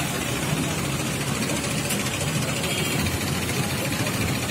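A small engine-driven power sprayer pump running steadily, with the hiss of disinfectant spray from the hose nozzles.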